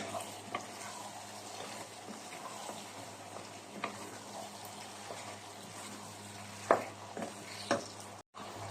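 Sweet and sour chicken sizzling in a pan as a spatula stirs it, with a few sharp knocks of the spatula against the pan.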